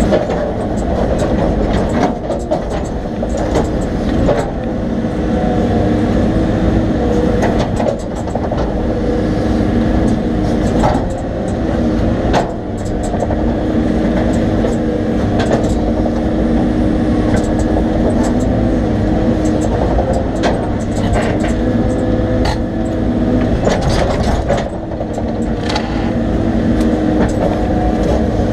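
Excavator's diesel engine running steadily, its note rising and falling a little, with scattered sharp cracks and clanks over it.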